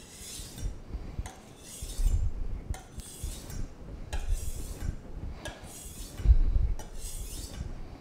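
A chef's knife stroked across the wet 6,000-grit polishing side of a whetstone, a scraping hiss on each of about six strokes, roughly one a second, with light dull thumps from handling between them.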